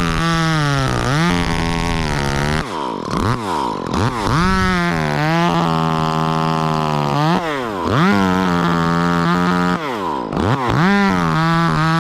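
Two-stroke chainsaw revved up and held at high speed about four times, dropping back toward idle in between, as it cuts through tree limbs.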